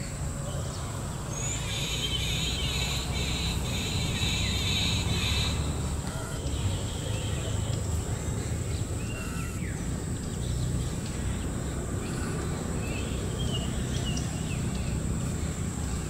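Birds calling: a burst of busy chattering from about one to five seconds in, then scattered short chirps. Underneath runs a steady low rumble and a thin, steady high-pitched whine.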